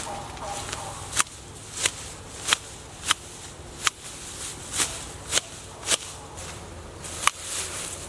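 Hand shears snipping through grass, about nine sharp snips a little over half a second apart.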